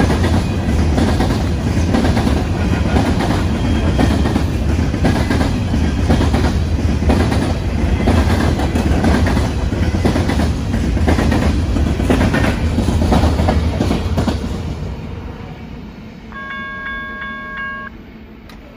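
BNSF grain train of covered hopper cars rolling past, steel wheels clicking over the rail joints in a steady rapid clatter over a low rumble. The noise fades about fifteen seconds in as the last cars pull away. A train horn then sounds once, briefly.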